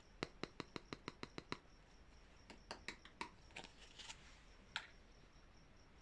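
Small objects being handled during an unboxing: a quick run of about eight sharp clicks in the first second and a half, then scattered clicks and short rustles.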